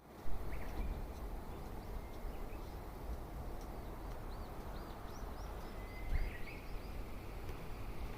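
Small birds chirping outdoors: a few short calls early on, then a quick run of about eight arched, high chirps past the middle. Under them is a steady low background rumble.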